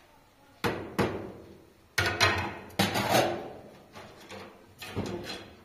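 A series of sharp knocks or bangs at uneven intervals, about half a dozen, each dying away quickly.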